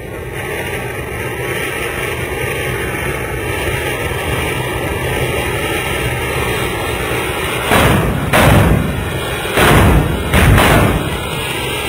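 Anar fountain firework hissing steadily as it sprays sparks, then from about eight seconds in several small bijli bomb firecrackers going off as sharp bangs over the next three seconds, set off by the fountain's sparks.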